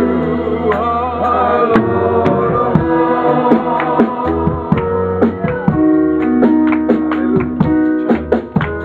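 Live gospel praise music from a church band: drums, bass and keyboard playing an upbeat groove, with some singing.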